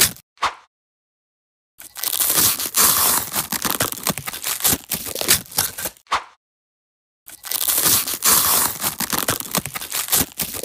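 Crunching, crackling ASMR sound effect with no engine tone, in two long spells: one starting about two seconds in and one starting about seven seconds in, each cutting off into dead silence.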